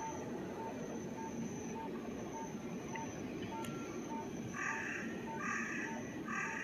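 Railway station platform ambience between trains: a short electronic beep repeats about every half second over a steady background hum. About two-thirds of the way in, a series of loud repeated calls comes in, roughly one a second.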